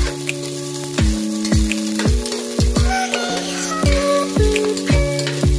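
Garlic, onion and ginger sizzling in hot oil in a pot while being stirred with a metal spatula, under background music with a steady drum beat.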